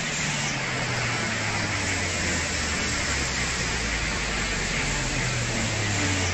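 Muddy flash-flood torrent rushing down a street: a steady, dense rushing noise with no breaks, and a faint low drone underneath.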